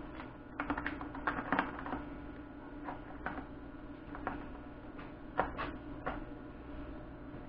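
Plastic clicks and taps of a forklift battery's watering-system tubing and red float caps being handled and pushed into place, a quick run of clicks in the first couple of seconds, then single clicks spaced about a second apart. A steady low hum runs underneath.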